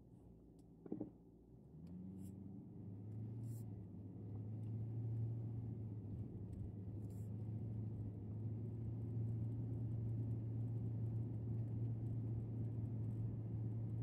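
Lexus LS430 pulling away and driving, heard from inside the cabin: a low engine and road rumble with a steady hum that builds over the first few seconds, then holds.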